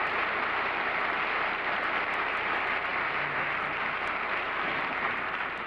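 Studio audience applauding steadily, beginning to die away near the end.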